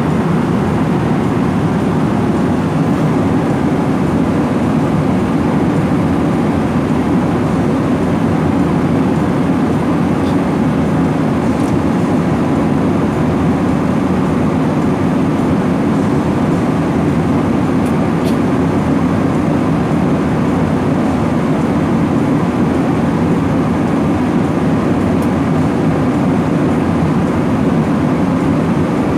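Steady cabin noise of an airliner in cruise flight: the even hum of the engines and the airflow over the fuselage, unchanging in level.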